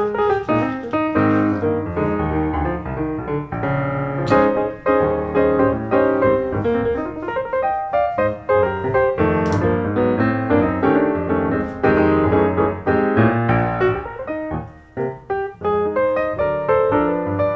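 Piano music: a fast, busy stream of short notes played without pause.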